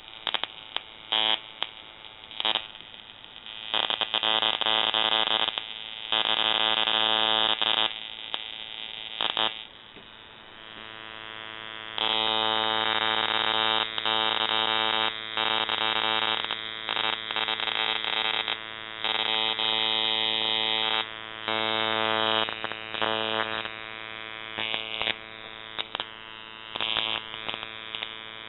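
Car ignition coil driven by a 555 timer and MOSFET, buzzing at its switching frequency. A high-voltage spark arcs from its output terminal, and the sound gets much louder in stretches of a few seconds that start and stop suddenly.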